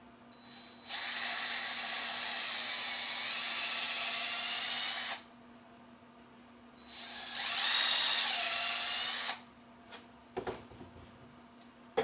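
Cordless drill with a twist bit drilling out the centre of the flame rotor's shaft coupler to enlarge the hole for a new motor shaft. It runs in two bursts, about four seconds and then about two and a half seconds, followed by a few light clicks.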